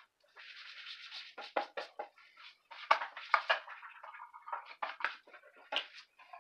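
A white wooden shelf unit being lifted off a desk and turned over by hand: a short rubbing scrape, then a string of knocks and taps as the boards bump and shift, the sharpest about three seconds in and again near the end.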